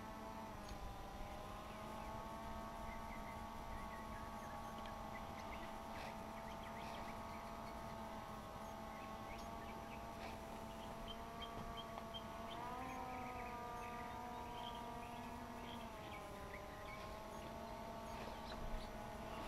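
DJI Phantom 2 Vision Plus quadcopter's motors and propellers whining in flight, faint and steady, the pitch dipping and rising a few times as the throttle changes.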